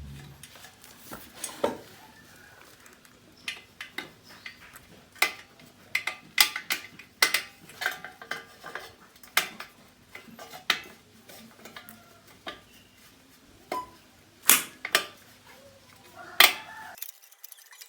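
Metal tools and parts clinking and tapping during hands-on work, in irregular sharp clicks over a faint background.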